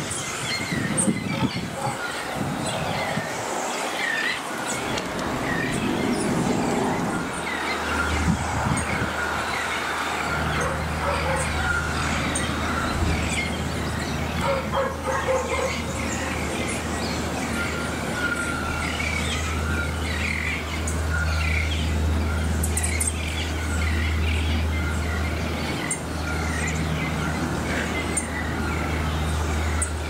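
Many small birds chirping and calling over one another. A steady low hum joins in about eight seconds in.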